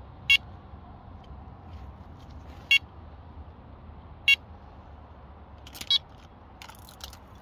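Carp-fishing electronic bite alarm giving four single high-pitched beeps, a second or two apart, signalling a bite as the line drops back. Some soft rustling near the end.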